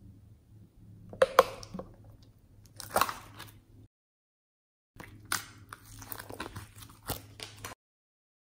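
Slime being squished and mixed by hand, giving sticky crackling pops and clicks: a few loud pops early on, then a busier run of crackles. The sound cuts to dead silence twice.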